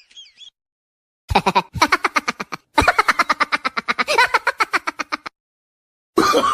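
Laughing sound effect: two bursts of rapid, staccato laughter, about ten short 'ha's a second, the second burst longer than the first, with brief silences around them.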